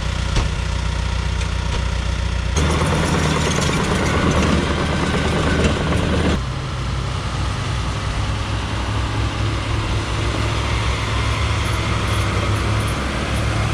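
John Deere 450H crawler dozer's diesel engine idling steadily. For a few seconds, from about two and a half seconds in, a louder rushing noise rises over it, then drops back.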